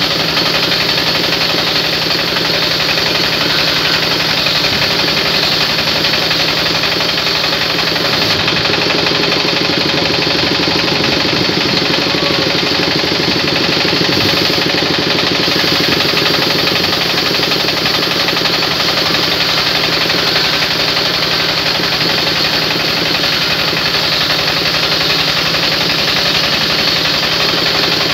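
Large belt-driven band saw mill running steadily under power while a heavy wood slab is fed through the blade, its motor hum and the cutting noise unbroken throughout.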